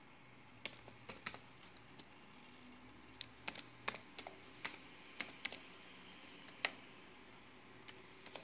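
Laptop keyboard being typed on: scattered, irregular keystrokes with short pauses between them, one sharper click about two-thirds of the way in.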